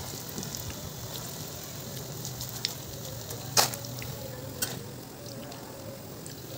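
Gram-flour-battered potato and onion pakoras frying in hot oil in a small kadhai: a steady sizzle with small crackles. Two sharp knocks cut through it, the louder about halfway through and another about a second later.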